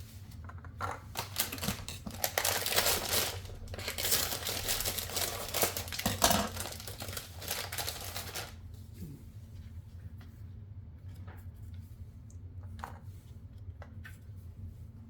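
Plastic packaging crinkling and rustling as it is handled, dense for about seven seconds, then a few scattered clicks and taps.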